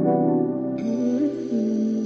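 Mellow lo-fi background music: a new sustained chord comes in at the start, with a slow gliding melody line underneath.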